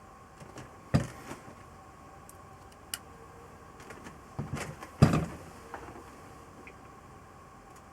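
A few sharp knocks and clicks, like hard objects being handled or set down, over a faint steady hum; the loudest knock comes about five seconds in.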